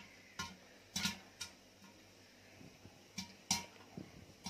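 Popcorn kernels popping inside a closed aluminium pressure cooker: irregular sharp pops, some coming two close together, with gaps of up to a second or more between them.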